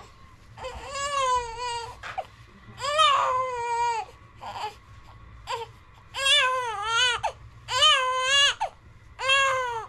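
Newborn baby crying: five wavering wails of about a second each, broken by short pauses for breath.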